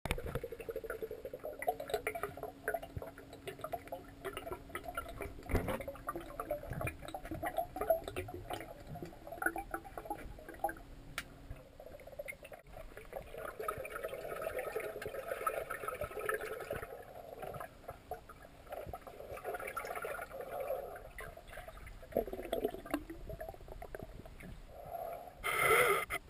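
Underwater sound heard through a GoPro housing in a swimming pool: air bubbles gurgling and crackling, with a faint steady hum under much of it. A brief louder rush comes near the end.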